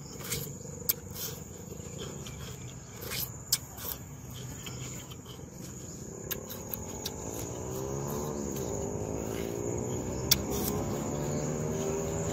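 Insects drone steadily in the background while crunchy bilimbi fruit is chewed, with short crisp clicks in the first half. From about halfway a louder low hum with a wavering pitch joins and becomes the loudest sound.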